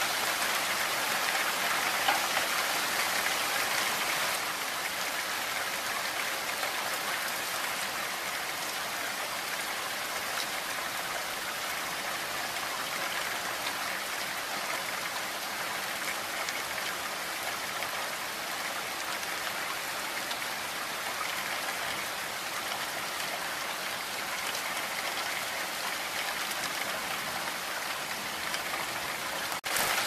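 Heavy rain falling steadily through spruce trees, an even hiss of countless drops with no let-up. A momentary dropout comes just before the end.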